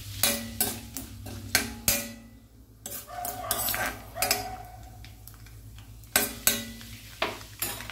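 Steel spoon stirring a tempering of dals, spices, dried chillies and curry leaves in hot oil in a stainless steel kadai, knocking against the pan in two bursts, each knock ringing briefly, with a scraping stir in between.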